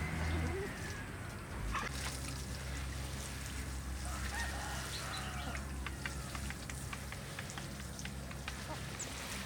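Farmyard poultry calling now and then, amid many short sharp clicks and taps, over a steady low hum.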